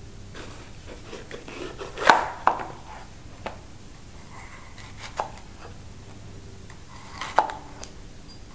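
Chef's knife slicing through a yellow bell pepper and knocking on a white plastic cutting board: a handful of sharp, irregularly spaced knocks, the loudest about two seconds in.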